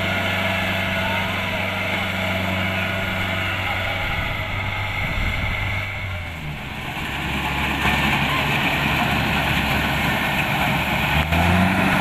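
Kubota DC-70 Plus rice combine harvester's diesel engine running steadily under load as the machine drives through and cuts rice. Its low hum changes about six and a half seconds in, and the machine grows louder from about eight seconds.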